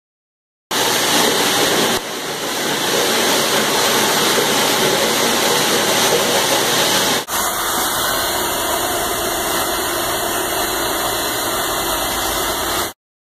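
Diamond floor grinder running on a concrete slab: a loud, steady grinding noise that starts abruptly about a second in. About seven seconds in it cuts to a slightly different steady machine noise, which stops abruptly near the end.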